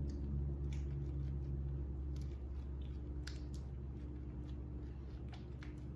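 Hands rolling a filled flour tortilla wrap, giving faint soft rustles and a few small clicks over a steady low room hum.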